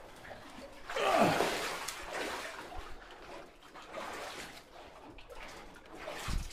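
Legs wading through knee-deep water, sloshing and splashing with each stride, in surges every second or two.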